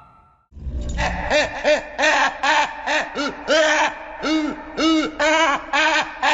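A rapid series of short hooting calls, each rising and falling in pitch, about two a second, starting with a brief low rumble about half a second in: an animal call played as a reconstructed dinosaur sound.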